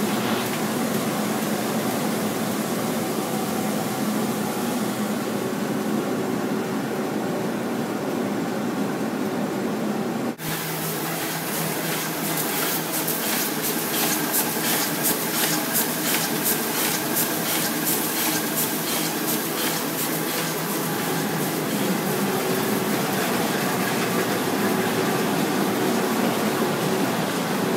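2006 Komori Lithrone LS 529+C five-colour sheetfed offset press with coater running: a steady machine hum with several held tones. The sound breaks off for a moment about ten seconds in, and after that a fast, regular clatter rides over the hum.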